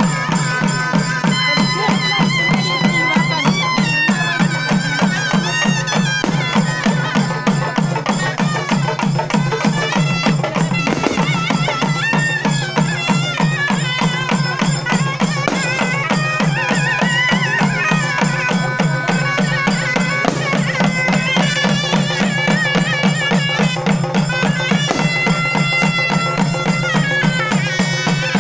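Tamil folk festival music: a shrill reed pipe plays a wavering, ornamented melody over fast, steady drumming on barrel drums, accompanying a dance.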